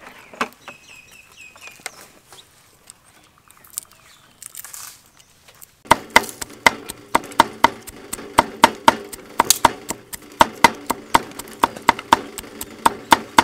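A chicken clucking briefly, then from about six seconds in a run of sharp, regular knocks, about three a second, typical of a knife chopping on a board.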